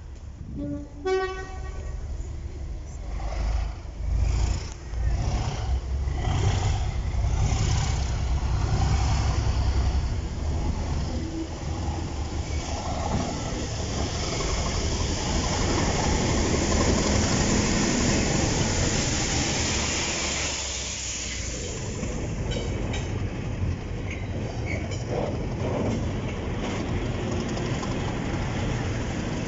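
Class 37 diesel locomotives, English Electric V12 engines, running past over a level crossing. The engines and the rushing of the train build to a peak in the middle and then ease as it goes by. A short horn note sounds about a second in.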